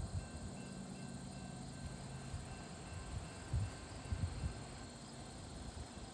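Insects trilling steadily, with a low rumble underneath and a few low bumps a little past the middle.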